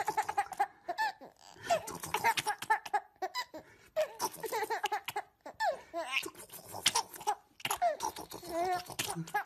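Baby laughing in repeated short bursts of giggles while being tickled on the belly.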